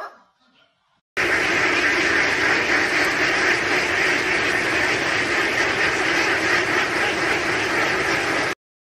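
A large flock of domestic ducks quacking all together in a dense, steady chorus. It starts about a second in and cuts off abruptly near the end.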